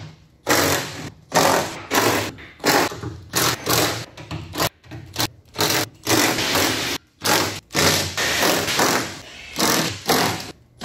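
Cordless impact wrench running in a rapid series of short bursts, well over a dozen, as it backs out the perimeter lid bolts of a first-generation Nissan LEAF battery pack.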